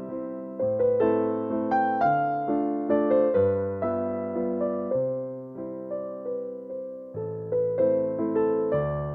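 Background music: a gentle piano melody of notes struck one after another over slowly changing bass notes, each note fading after it is struck.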